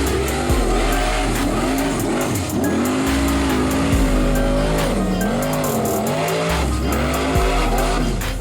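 Formula Offroad competition car engines revving hard, the pitch rising and falling again and again, over background music with a heavy bass.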